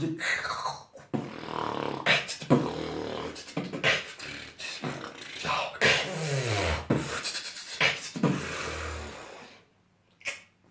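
Beatboxing: a person making percussive clicks and snares and pitch-gliding effects with the mouth and voice, with a falling sweep about six seconds in. It stops about nine and a half seconds in, and one short hiss follows near the end.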